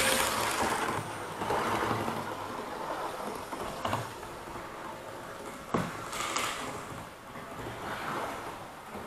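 OO-gauge model trains running on the track: a steady rushing rumble of motors and wheels that swells and fades every second or two, with a few light clicks.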